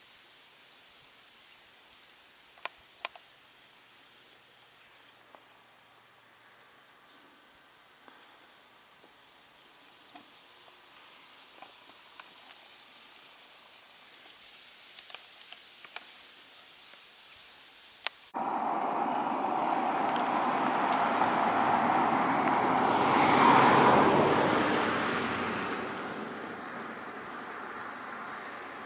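Crickets and other insects chirping in a steady, rapidly pulsing chorus. About two-thirds of the way through, a rushing noise starts abruptly, swells and fades over several seconds: a vehicle passing on the road.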